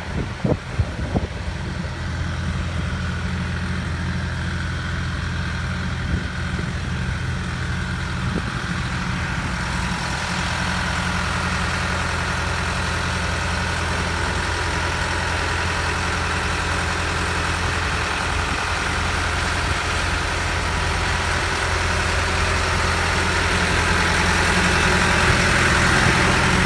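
Engine of a Schwing Stetter SP1200 concrete pump running steadily with a low hum, after a few knocks at the start. A rushing noise builds from about a third of the way in and gets louder toward the end.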